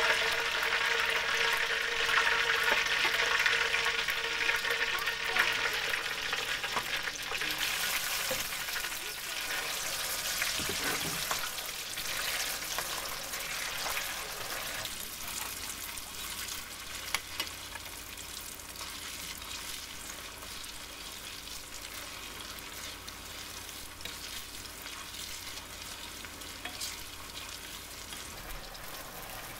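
Marinated beef strips, just added, deep-frying in hot oil in a stainless steel wok: a dense sizzle that is loudest at first and gradually dies down. A metal spatula stirs the meat, with a couple of sharp clicks against the wok about halfway through.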